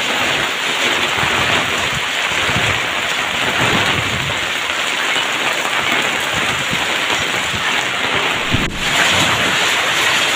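Heavy rain mixed with hail pelting down in a dense, steady hiss. There is a brief break about nine seconds in, after which the downpour continues.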